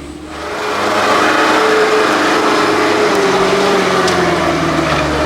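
Heavy diesel truck engine revving hard close by. It comes in loud about half a second in and holds, its pitch easing slowly downward.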